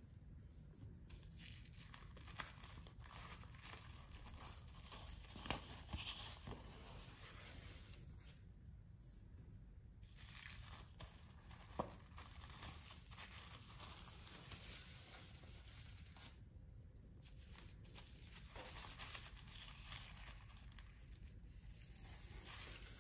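Faint crinkling of clear plastic wrapping on a stack of prints as they are handled and shifted. A few brief, sharper crackles stand out, the sharpest about twelve seconds in.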